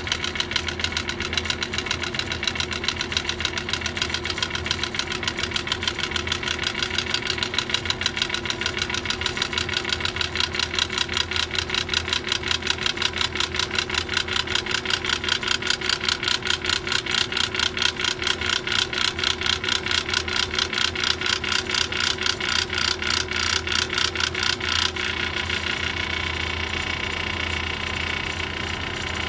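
Failing 3-ton Carrier Infinity air-conditioning compressor running with a fast, regular mechanical knocking over its hum, the sign of a bad compressor. About 25 seconds in the knocking cuts off suddenly and the unit carries on with a steady hum.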